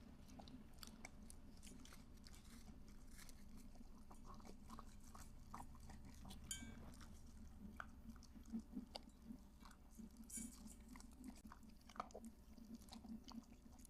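Dogs eating their breakfast: faint chewing and crunching with scattered small clicks, a few slightly louder ones in the second half.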